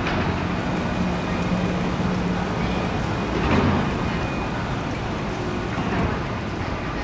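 City street traffic: vehicles passing at an intersection, with a steady low hum for about two seconds and brief louder swells about three and a half and six seconds in.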